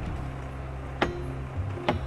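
Snowplow engine running steadily, with two sharp knocks about a second apart.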